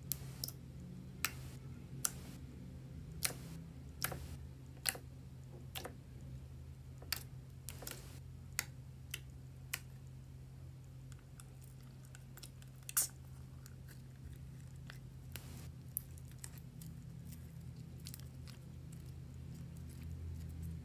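Irregular sharp clicks and taps, roughly one a second, over a steady low hum; one louder click comes about two-thirds of the way through.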